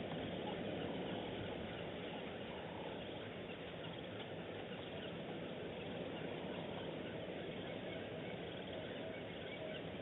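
Steady wash of natural ambience with many short bird calls and chirps scattered through it.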